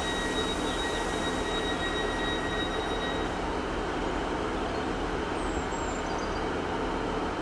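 GWR Class 150 Sprinter diesel multiple unit standing at the platform with its Cummins diesel engines idling steadily. A steady high whine runs over it and stops about three seconds in.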